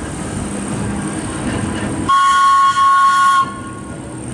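1929 electric railcar rolling slowly over the track, then about two seconds in it sounds its warning signal: two loud, high toots in quick succession, the second a little longer.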